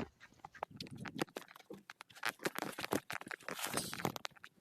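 Irregular scuffling and scratching: many short clicks and rustles, busiest in the second half, as a chicken scurries about to evade a hand trying to pet it.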